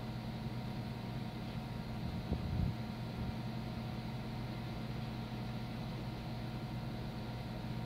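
Water-cooled PC running: a steady hum from its case fans and coolant pump, with several faint steady whining tones above it. A brief low bump about two and a half seconds in.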